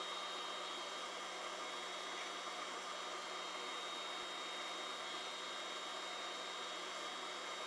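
Laser cutter running as it cuts a pattern into a thin wooden sheet: a steady hiss of air and fans with a constant low hum and a faint, steady high whine.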